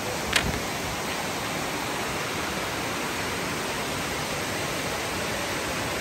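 Steady rush of water cascading over rock at a waterfall, with one brief click about half a second in.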